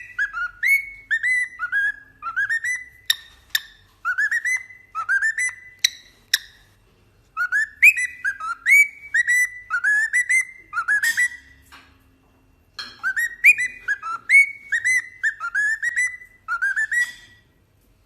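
A parrot whistling a long string of short rising notes, about two or three a second, in several runs with brief pauses between them and a few sharp clicks among them.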